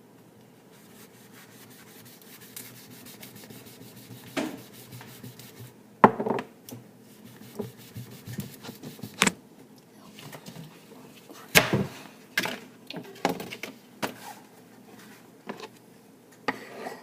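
Kitchen handling sounds: irregular knocks and clatters of utensils and dishes with scraping and rubbing between them, the loudest knocks about six and eleven seconds in.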